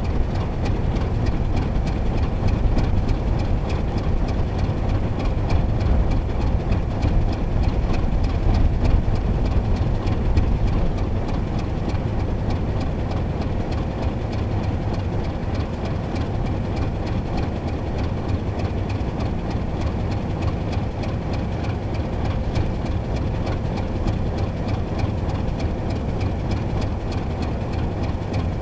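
81 class diesel-electric locomotive hauling a loaded ore train, its diesel engine running under power with a steady, heavy low rumble as the train comes slowly on.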